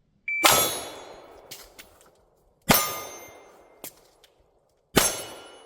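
Three pistol shots about two and a quarter seconds apart, each followed by a long echoing decay with the ring of steel targets in it, and a few fainter sharp clicks between them. A brief high beep comes just before the first shot.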